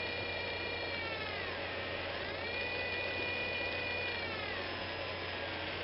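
Small DC motor from a servo, driven by PWM from a 556 timer H-bridge and running in reverse, with a steady whine. Its pitch drops about one and a half seconds in, climbs back about two seconds in, and drops again near the end as its speed is turned down and up. A low mains hum runs under it.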